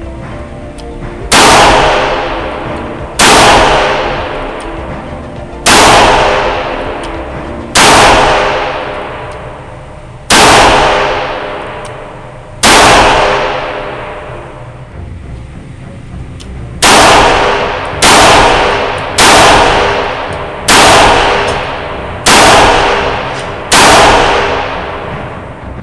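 Taurus 856 .38 Special revolver firing shot after shot, each report ringing out for a second or two. Six shots about two seconds apart, then after a short pause six more in quicker succession: two full cylinders emptied.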